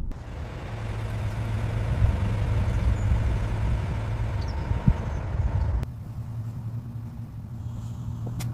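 A car engine running with a steady low rumble, which drops suddenly to a quieter, thinner sound about six seconds in.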